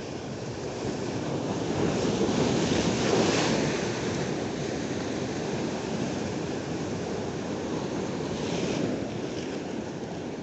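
Ocean surf breaking and washing over shoreline rocks. It swells to its loudest about three seconds in and surges again briefly near the end.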